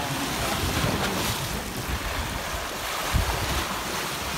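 Sea waves washing on a shore, with wind buffeting the microphone in gusts. A brief thump about three seconds in.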